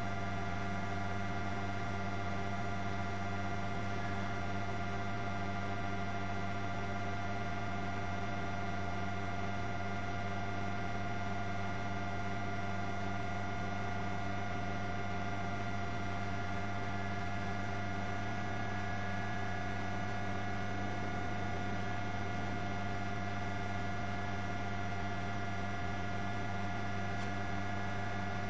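Steady helicopter turbine and rotor drone inside the cabin, an even hum with several steady whining tones over it that do not change.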